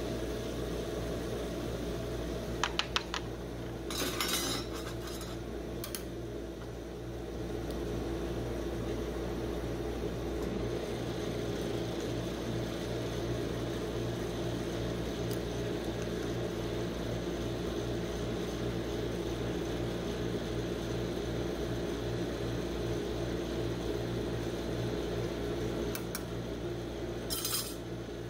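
Steady hum of the rolled-ice-cream machine's cold-plate refrigeration unit, with a few light clicks and short scrapes of a metal spatula against the plate and paper cup, a cluster a few seconds in and another near the end.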